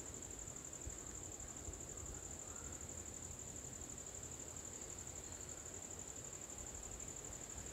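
Insects trilling steadily: one continuous, high-pitched, fast-pulsing buzz.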